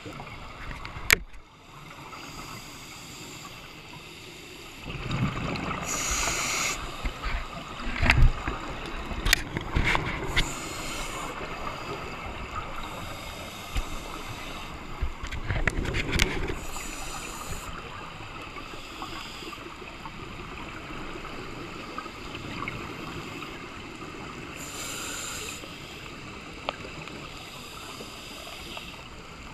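Underwater sound of scuba divers breathing through their regulators: bursts of exhaled bubbles rush and gurgle past every several seconds, over a steady watery hiss, with a few sharp clicks.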